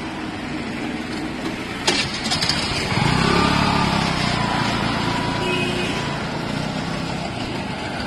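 TVS scooter's small petrol engine being started: a click about two seconds in, then it catches and runs from about three seconds, over steady passing road traffic.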